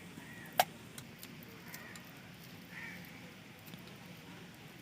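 Quiet handling of ground lentil paste being gathered up off a stone grinding slab, with one sharp click about half a second in and a few faint taps.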